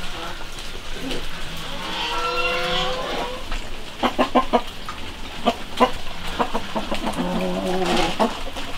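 Farm animals calling: one long drawn-out call about two seconds in, a run of short clucking calls around the middle, and another drawn-out, lower call near the end.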